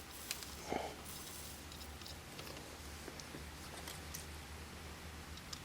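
Faint handling noises while wires are tinned with solder: a few light clicks and a short soft scrape about three quarters of a second in, over a low steady hum.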